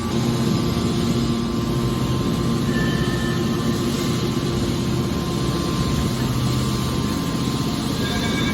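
Hydraulic metal baler running, giving a steady mechanical hum with a low drone that holds level throughout.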